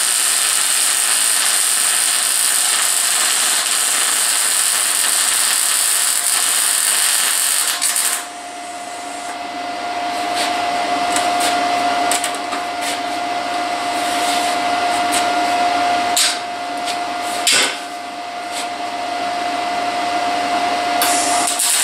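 Wire-feed MIG welder arc-welding steel tubing, a loud steady hiss that stops suddenly about eight seconds in. After that a quieter steady hum and a couple of sharp knocks, and the welding hiss starts again just at the end.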